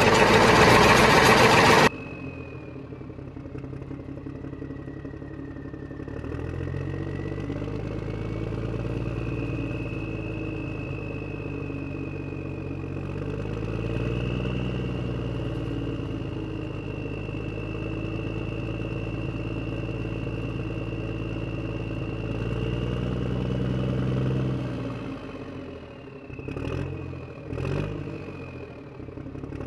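A tractor engine running at idle and revving up and down several times, its pitch rising and falling, with a faint high whine over it. It opens with about two seconds of loud hiss-like noise, and near the end the engine dips and a couple of sharp knocks break in.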